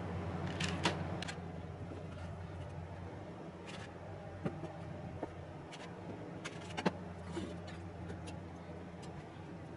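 Kitchen knife slicing through soft cooked sweet potato and tapping down on a wooden hinoki cutting board: a scatter of light knocks and clicks, one sharper tap about seven seconds in, over a steady low hum.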